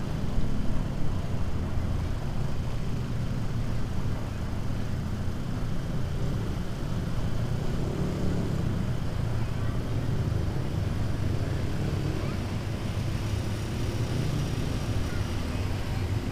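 Motorcycle engine running steadily while riding, with road and wind noise rushing over the microphone on the bike.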